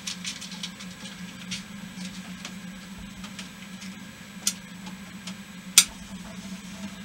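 Scattered small clicks and ticks from a freshly lit Trangia Mini alcohol stove as it heats, with a sharper click about four and a half seconds in and the loudest one about six seconds in, over a steady low hum.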